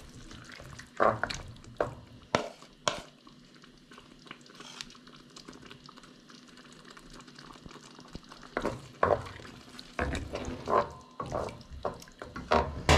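A wooden spoon stirring chicken livers and onion in a stainless steel pot, with scrapes and knocks against the pot. The stirring comes in two spells with a quieter lull in the middle.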